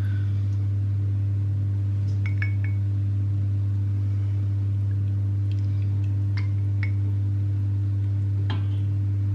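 A steady low electrical hum from a kitchen appliance, with a few light clinks of crockery and cutlery as soup is served into a mug.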